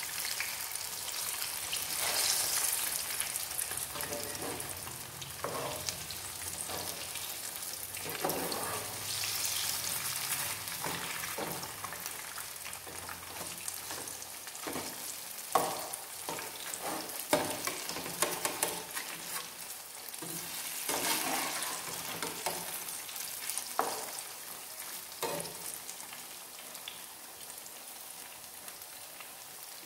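Batter-coated ripe plantain slices sizzling as they deep-fry in hot coconut oil, with scattered sharp taps and scrapes as a slotted turner flips them against the nonstick pan.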